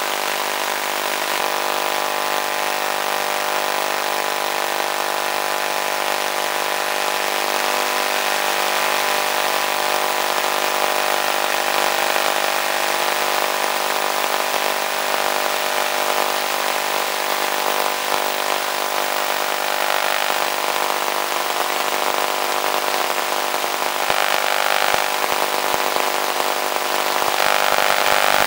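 Electric motor and propeller of an FPV model plane running steadily under power, a constant multi-tone hum over wind rush, swelling a little near the end.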